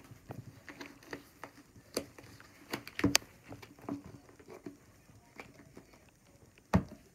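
Hard plastic lid of a slime tub clicking and knocking irregularly as hands pry at it, still stuck shut. There is a sharper click about three seconds in and a louder knock near the end.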